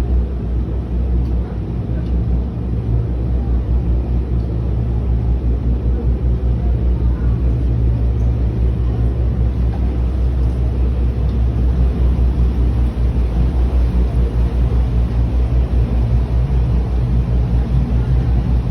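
A tour boat's engine running steadily at cruising speed, a loud low drone with a fast, even pulse.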